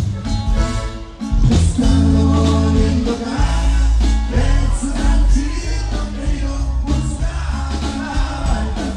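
Norteño band playing live with a singing voice and a heavy bass line; the music dips briefly about a second in, then carries on at full level.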